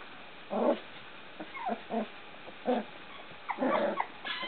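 Three-week-old poodle puppies whimpering and yipping: about five short cries, the last one longer, near the end.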